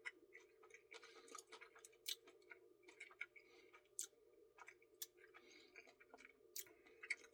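Faint close-up mouth sounds of someone eating a caramel truffle ice cream Blizzard: irregular wet chewing clicks and lip smacks, several a second, over a faint steady hum.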